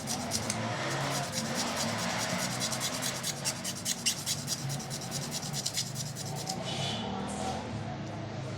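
Rapid back-and-forth rubbing strokes, several a second, as a scratched Casio watch is polished by hand. The strokes stop about six and a half seconds in.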